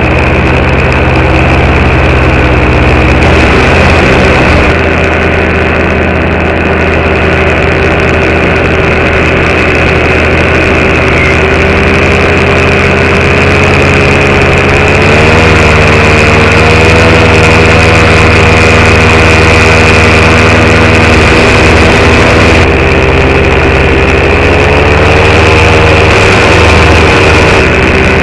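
Paramotor engine and propeller running steadily in flight, heard close up from the pilot's harness. The engine note rises slightly about halfway through and swells briefly again near the end.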